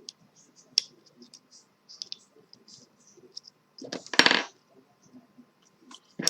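Light clicks of handling small parts, with a short metallic clatter about four seconds in, small hardware rattling on a hard work surface, and a sharp click near the end.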